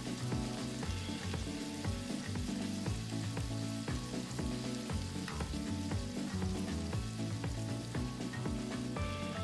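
Sagari steak and bean sprouts sizzling on a hot iron plate, a steady hiss, with background music and a regular beat underneath.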